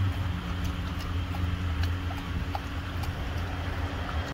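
Golden retriever lapping water from a bowl, soft wet clicks every so often, over the steady low hum of an idling car.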